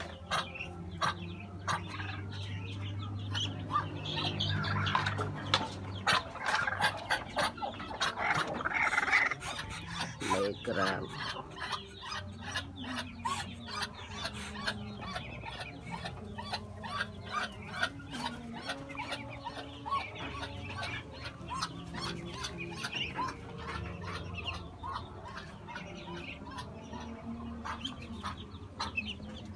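Barnyard fowl clucking and calling on and off, with many short sharp clicks and taps, thickest in the first half.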